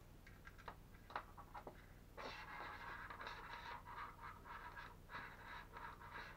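Faint handling noise from a Hobbywing Flyfun HV 130A speed controller being turned over in the hands: a few light clicks, then from about two seconds in an uneven scraping and rubbing of its casing and wires against the fingers.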